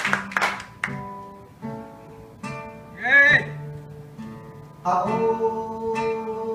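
Small-bodied acoustic guitar opening a song: applause dies away in the first second, then a few separate plucked notes and chords, a quick rising note about three seconds in, and a strummed chord near five seconds that keeps ringing.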